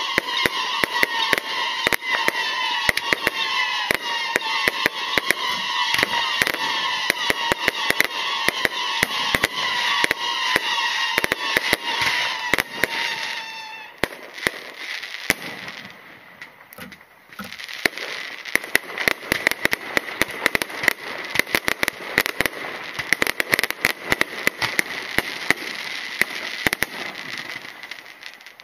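Fireworks display: a dense, continuous run of crackles and bangs from aerial shells and rising comets. It drops away briefly a little past halfway, then builds again.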